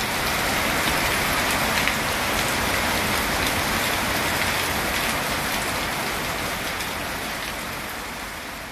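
Heavy rain pouring onto a tiled temple roof and dense tropical foliage, a steady hiss that slowly fades away over the last few seconds.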